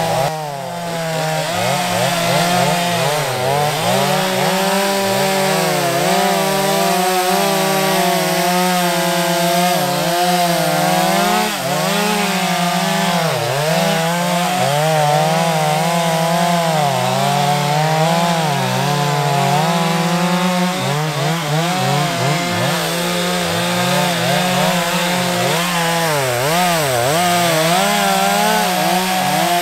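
Two Stihl two-stroke chainsaws, one of them an MS231, cutting through a log at the same time at full throttle. The two engine notes rise and fall against each other as the chains bog and recover in the wood.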